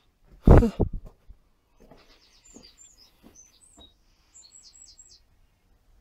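A short, loud thump about half a second in. From about two seconds in, a small bird sings a quick run of short, high chirps, many falling in pitch, until a little past five seconds.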